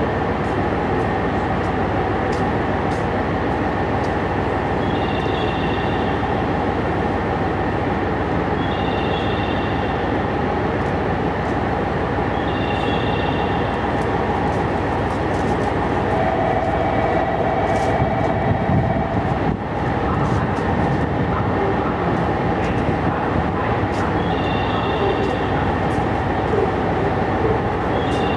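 A JR West KiHa 121 single-car diesel railcar drawing slowly into the station, its diesel engine and wheels giving a steady rumble. A short high two-tone chirp repeats every few seconds, and a steady tone is held for a few seconds past the middle.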